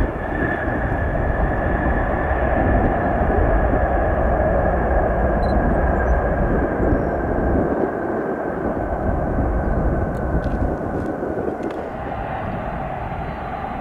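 Boeing 747-400 freighter's four jet engines on landing rollout just after touchdown: a loud, steady jet rumble with a high whine that slowly falls in pitch. The sound eases somewhat near the end.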